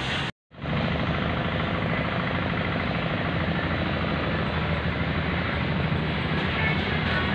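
A steady motor drone with a hiss over it, which cuts out completely for a moment just after the start and then carries on evenly.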